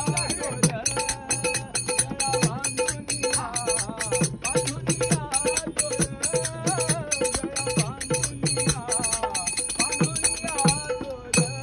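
Group of men singing a Marathi devotional bhajan together, with small hand cymbals (taal) clashing in a fast, steady rhythm over a recurring low drum beat.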